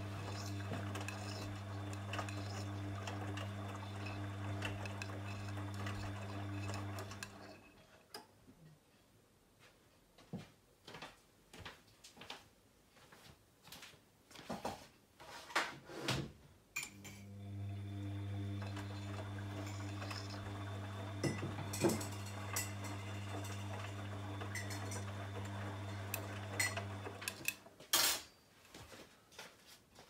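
Bosch VarioPerfect WAQ283S0 washing machine tumbling a wash load: the drum motor hums steadily for about seven seconds, stops for about ten seconds of scattered clinks and knocks, then hums again for about ten seconds and stops near the end. This stop-start turning of the drum is the wash stage of a Cottons 40 programme with Aqua Plus.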